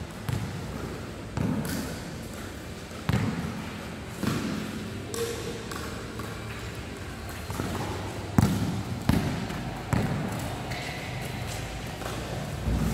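Basketball bouncing on a hard indoor court: about ten uneven thuds as the ball is dribbled and passed, each ringing on briefly in a large hall.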